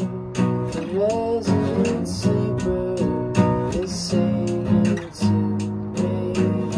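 Nylon-string classical guitar strummed in a steady rhythm, chords changing about every second.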